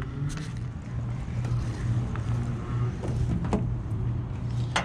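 Steady low rumble with jacket fabric rubbing against a chest-mounted camera, and a few brief knocks and scrapes from movement.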